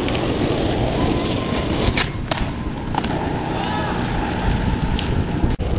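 Skateboard wheels rolling over rough asphalt in a steady low rumble, with two sharp clicks about two seconds in.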